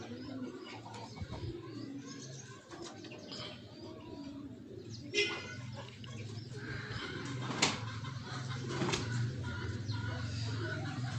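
Chickens clucking softly, with one short loud squawk about five seconds in and a sharp click near eight seconds. A low steady hum runs underneath in the second half.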